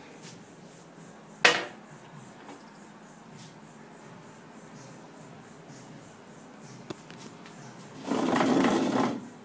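Handheld phone being moved and handled: a sharp knock about a second and a half in, then low room noise, and about a second of rustling near the end.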